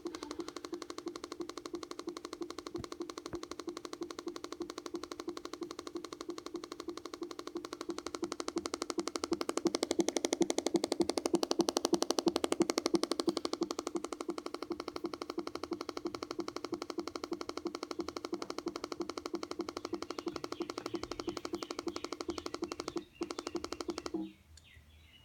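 A 2013 MacBook Air making an abnormal rapid clicking buzz, a fast steady rattle over a low hum. It grows louder for several seconds in the middle, breaks off for an instant near the end, then stops.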